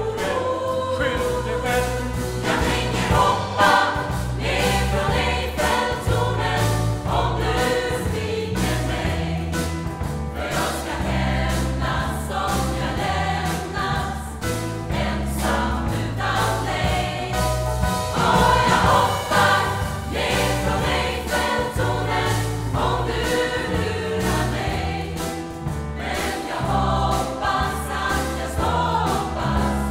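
Mixed choir of men's and women's voices singing in parts over an accompaniment with a bass line that changes note about every second, in a church.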